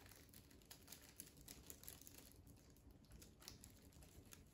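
Near silence with faint, scattered light ticks: a plastic paprika shaker being shaken to sprinkle paprika onto raw chicken drumsticks.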